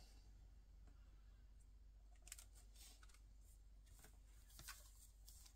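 Near silence over a low steady hum, with a few faint rustles and light taps from about two seconds in as hands handle and press on a paper card with a clear plastic shaker window.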